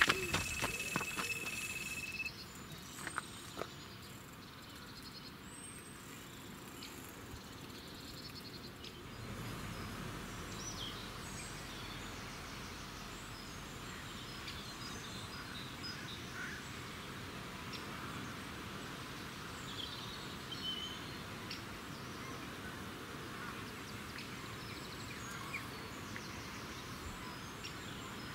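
Electronic carp bite alarm sounding one continuous high tone for about the first two seconds: a run, a fish has taken the bait. After that there is a steady outdoor hiss with short scattered bird calls.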